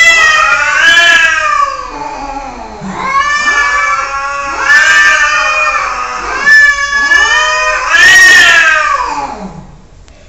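Domestic cat yowling: a run of about five long, drawn-out calls, each rising and then falling in pitch, one after another with only short breaks, until they stop near the end.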